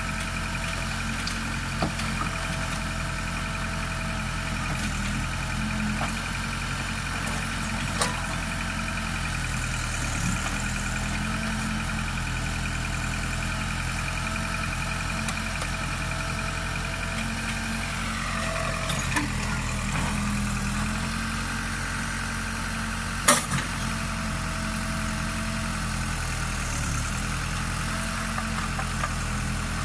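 Case backhoe loader's diesel engine running steadily, with a high whine that slides down in pitch a little past halfway. A few sharp knocks sound through it, the loudest a little past the two-thirds mark.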